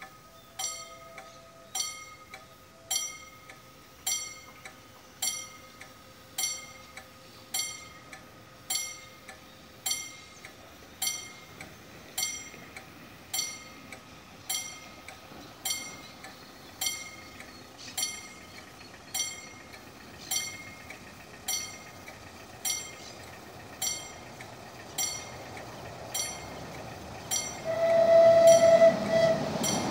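Level-crossing warning bell ringing steadily, about one and a half strikes a second. Near the end, the approaching CAF-UTA 3700 light-rail tram sounds its horn for about two seconds as its running noise grows.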